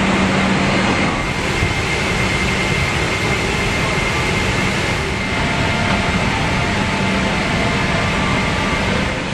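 Steady rush and hum of an airliner cabin's air conditioning inside a Boeing 777-300ER, with a thin, steady high whine running through it.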